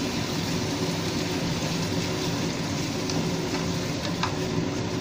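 Chicken sizzling in a pan as coconut milk is poured over it, then stirred with a wooden spatula, with a few light knocks in the second half. A steady low hum runs underneath.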